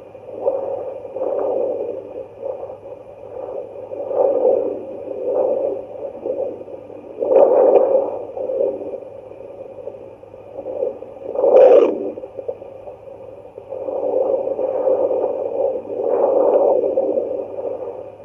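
Fetal Doppler's speaker output: muffled static-laden whooshing that swells and fades about once a second, with two louder swishes around the middle, over a faint steady electronic tone and hum.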